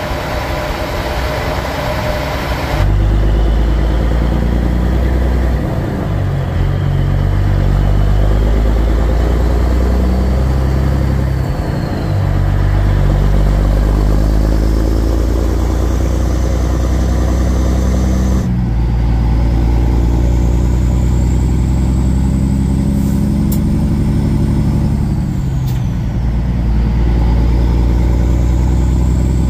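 Semi truck's diesel engine pulling through the gears, its note climbing and then breaking off and dropping at each of several shifts. A loud hissing rush for the first three seconds cuts off suddenly.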